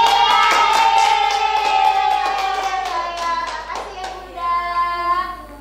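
Voices singing a long held note that slowly falls, with quick, steady hand clapping. A second, shorter sung note follows about four seconds in.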